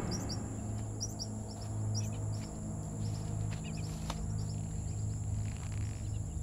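Small birds chirping in short, high notes scattered throughout, over a steady low hum, with a single sharp click about four seconds in.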